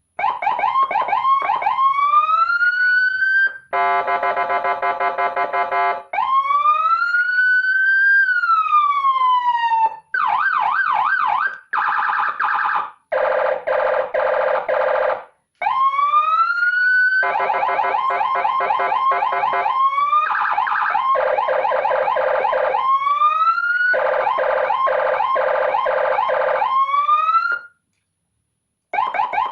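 Electronic siren module playing Indonesian highway-patrol police siren patterns through a speaker. It switches every few seconds between rising and falling wails, a steady horn tone, fast yelps and rapid warbling or pulsing tones. It breaks off near the end and starts again just before it.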